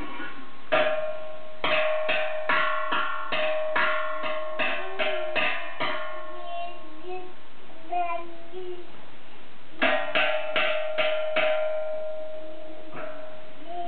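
A baby drumming with her hands on a stainless steel stockpot, each hit ringing out with a metallic tone. The hits come in two quick runs of two to three a second, with a pause of a few seconds between them.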